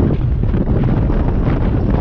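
Loud, rumbling wind noise on the microphone of a camera mounted on a motorcycle being ridden at road speed.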